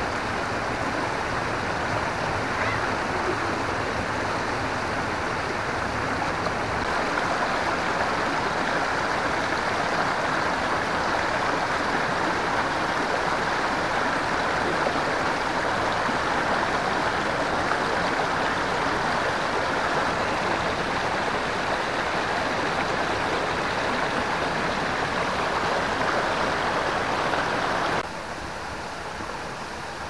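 Water rushing steadily over rocks in a shallow stream. About two seconds before the end it drops suddenly to a quieter rush.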